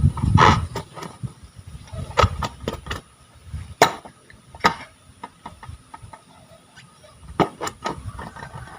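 Hands working fluffy slime: irregular wet pops and clicks as air pockets burst, over low squelching that comes and goes, with a quieter stretch in the middle.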